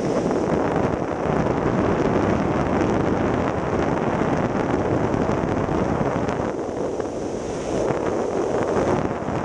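Strong, steady rush of wind buffeting the microphone of a camera on a wingsuit pilot in fast flight, easing slightly about seven seconds in.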